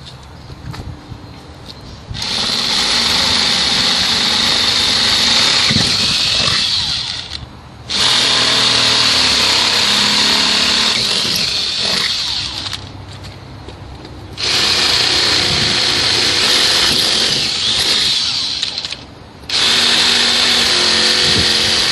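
Cordless drill with a 3/8-inch bit enlarging holes in the inside skin of a steel door. It drills in four runs of several seconds each with short stops between, and the bit cutting the steel gives a strong high-pitched whine over the motor.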